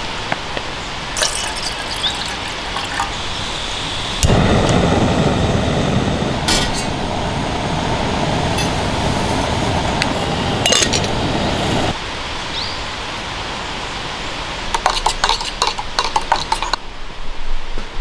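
Metal clinks of a stainless steel camp mug and kettle while instant coffee is made. A steady rushing noise runs for about eight seconds in the middle, and a quick run of clinks near the end sounds like a spoon stirring in the mug.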